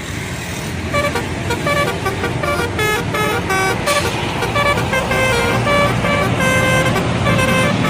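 Indonesian bus telolet horn, a multi-trumpet air horn, playing a fast tune of short notes that jump up and down in pitch, starting about a second in, over the low running of the bus's engine.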